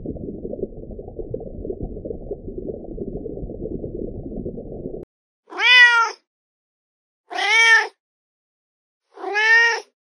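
A very young kitten meows three times, each meow rising then falling in pitch, about two seconds apart. Before the meows, a low, muffled rushing noise runs for about five seconds and cuts off.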